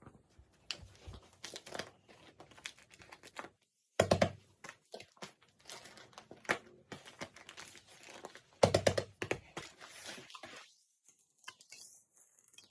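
Paper crinkling and crackling as paper squishies are handled, in many short rustles with two louder handling noises about 4 and 9 seconds in.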